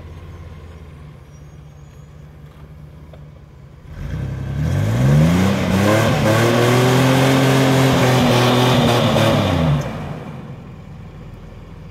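Chevrolet S-10 pickup idling, then revved hard about four seconds in and held at high revs for some five seconds while its rear wheels spin in the mud. It then drops back to idle. The truck is stuck in the mud and the spinning wheels get no traction.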